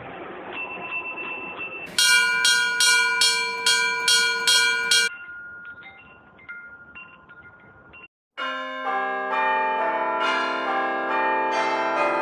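Bells ringing in a run of separate clips. First a bell is struck quickly, about eight strokes at two or three a second. Then come fainter scattered bell tones, and after a brief cut a peal of several church bells rings together.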